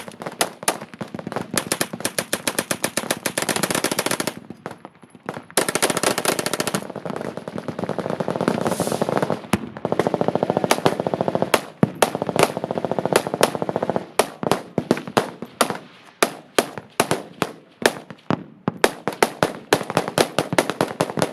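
Machine guns firing fully automatic in long sustained bursts, with a brief lull about four seconds in. From about halfway, the fire breaks into shorter bursts and rapid separate shots.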